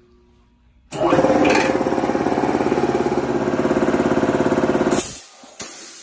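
High-pressure piston air compressor starting about a second in and running with a fast, even pulsing. It stops at about five seconds, shut off by its pressure switch at the cutoff pressure, and a sharp hiss of venting air follows and fades.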